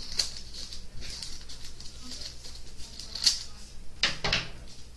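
Scissors cutting through folded parchment paper along the crease: a few separate sharp snips, the clearest about three seconds in and another just after four seconds.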